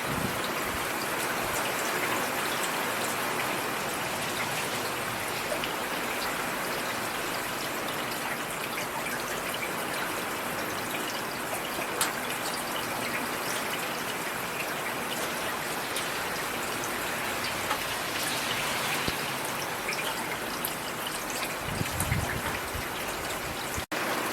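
Steady rain falling: an even hiss dotted with the ticks of individual drops. It briefly cuts out for an instant near the end.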